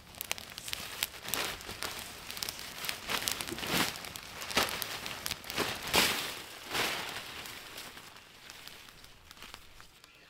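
A lightweight tarp crinkling and rustling as it is shaken out, in a series of swishing flaps; the loudest flap comes about six seconds in, and the handling grows quieter near the end.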